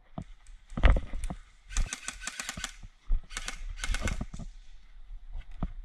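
Airsoft gunfire: two bursts of rapid sharp clicks, with a loud dull thump about a second in and a few scattered single clicks near the end.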